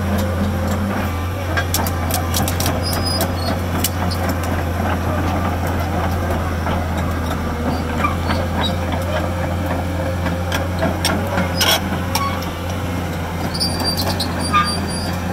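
Kobelco SK250LC crawler excavator travelling on its steel tracks: the diesel engine runs steadily under load, with irregular clanks and squeaks from the track chains and rollers.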